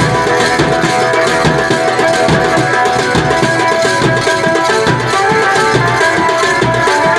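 Indian folk dance music: a two-headed hand drum (dholak) beating a steady rhythm under a sustained melody line.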